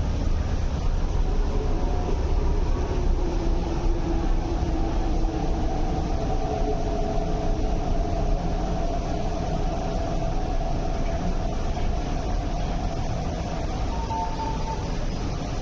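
Inside an MTR East Rail Line R-train electric multiple unit as it slows into a station: a steady running rumble with the traction motors' whine sinking slowly in pitch as the train brakes, easing off toward the end. A brief higher tone sounds near the end.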